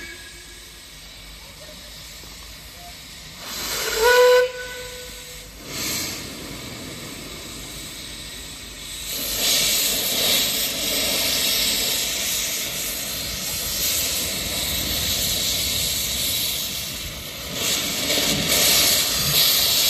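Steam locomotive whistle blown once about four seconds in, for about two seconds. From about nine seconds in, small saddle-tank steam locomotives move off with a loud, steady hiss of steam from their open cylinder drain cocks.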